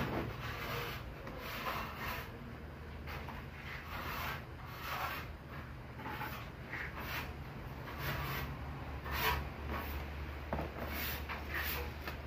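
Short, irregular scraping and rubbing from hand work with pliers and wires at a wall outlet.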